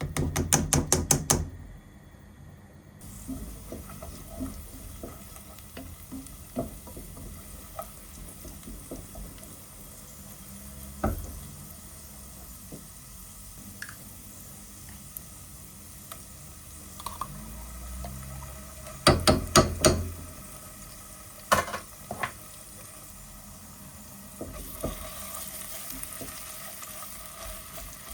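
Cooking at a pan: a quick run of utensil clatters against the pan just after the start and again about two-thirds through, with scattered lighter knocks between. A soft sizzling hiss of frying sets in near the end.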